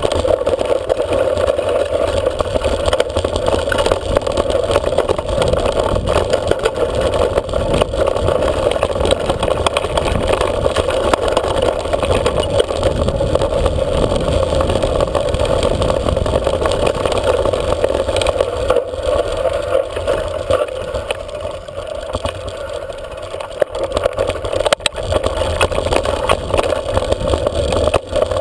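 Steady rushing, rumbling ride noise from a bike-mounted camera travelling over a rough dirt track, with wind on the microphone; it eases for a few seconds about two-thirds of the way through.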